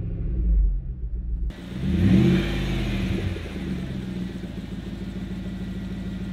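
2005 Land Rover LR3's 4.4-litre V8 running with no exhaust fitted, with that open V8 exhaust sound. Heard from inside the cab at first, then from outside; about two seconds in it revs up briefly and drops back to a steady idle.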